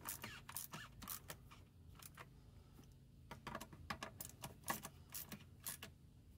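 Socket ratchet with a 10 mm socket clicking in short irregular runs as the intake resonator's two hold-down bolts are tightened, with a lull of about two seconds in the middle.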